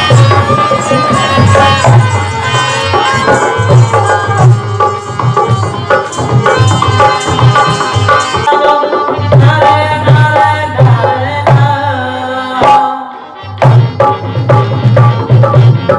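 Rajasthani folk music: a hand drum beating a fast, steady rhythm under harmonium melody, with a short break near the end before the drumming starts again.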